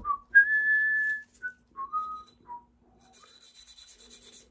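A man whistling a few notes of a tune: a held high note about half a second in, then several short notes stepping down. Near the end comes a faint scratchy scrubbing of a cleaning brush on pistol parts.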